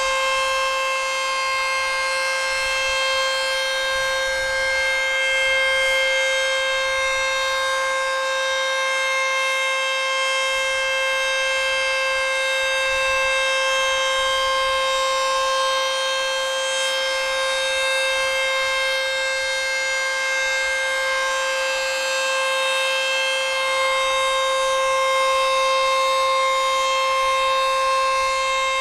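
ACA Screamer S-2 outdoor warning siren sounding its Full Alert signal: one loud, steady tone held at a constant pitch, swelling and easing slightly in level.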